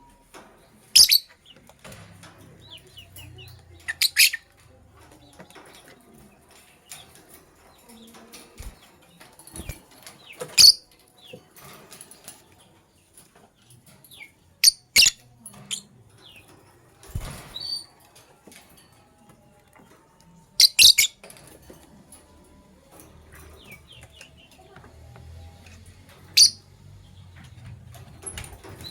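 Lovebirds calling with short, sharp, high-pitched chirps: about nine loud ones spread through, some in quick pairs, with fainter chirping in between.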